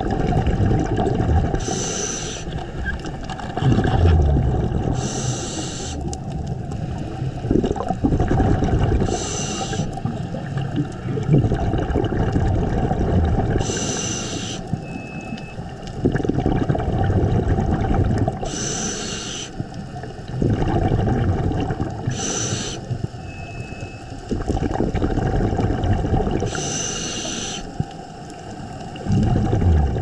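Scuba diver breathing through a regulator, heard underwater: a short hiss on each inhale alternates with a bubbling rumble on each exhale, about one breath every four seconds.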